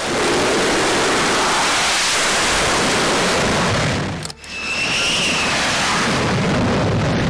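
Jet engines at full power during carrier catapult launches: a loud, steady roar, broken by a brief drop about four seconds in, then roaring again with a faint whine rising and falling just after.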